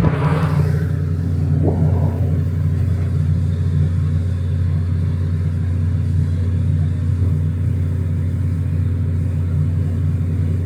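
Engine running with a steady low drone, with a brief rushing swell right at the start.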